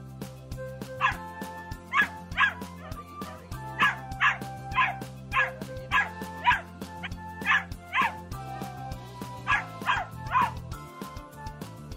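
Labrador puppy yipping in short, high-pitched barks, again and again in quick runs of two or three, over background music.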